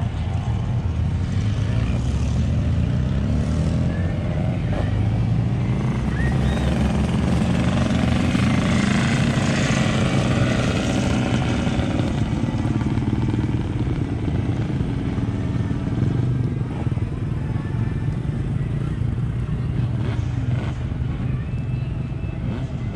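Motorcycle engine running, its note rising and then falling around the middle.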